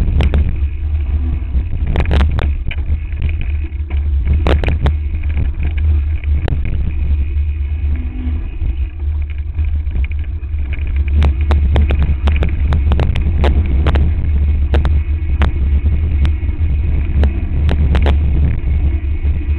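Heavy wind buffeting on the microphone of a camera mounted on a mountain bike descending rocky singletrack, with frequent sharp clacks and rattles as the bike hits rocks and roots. The knocks come thicker in the second half.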